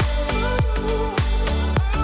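Upbeat background music with a steady beat, deep drum hits about twice a second under a gliding melody.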